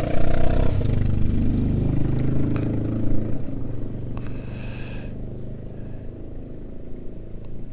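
A motor vehicle's engine running nearby, its pitch shifting in the first few seconds, loudest early and fading toward the end. A few light clicks from rubber oil seals being handled sound over it.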